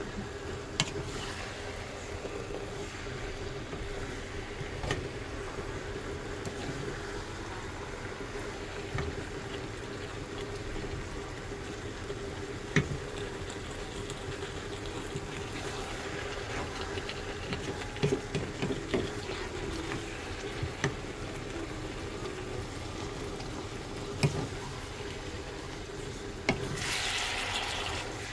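Fish cakes and onions stir-fried in sauce in a pan, stirred with a wooden spatula: a steady sizzle under a steady hum, with scattered knocks and scrapes of the spatula against the pan. A louder stretch of hissing comes near the end.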